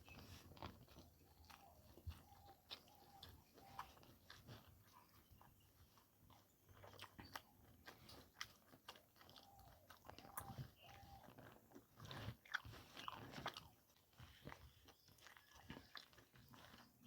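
Quiet, close-up mouth sounds of eating spicy pork curry with rice: chewing with many small wet clicks and smacks, busier for a stretch near the end.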